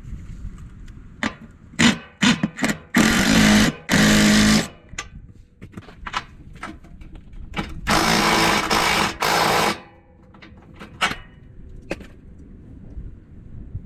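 A cordless power driver spinning nuts onto bolts in short bursts, twice about three seconds in and three times about eight seconds in, with clicks and knocks of the socket and hardware in between. This is the sound of lock nuts being run down onto the trailer's body-to-frame outrigger bolts.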